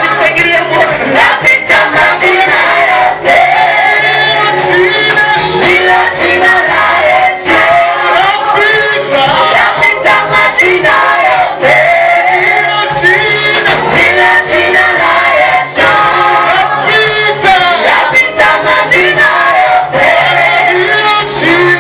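Gospel praise-and-worship music: a group of male and female voices singing together over instrumental accompaniment with steady low bass notes.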